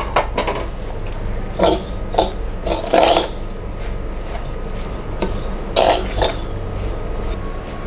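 A spoon clinking and scraping against a metal bowl in several short strokes, stirring rice flour with hot water into a dough.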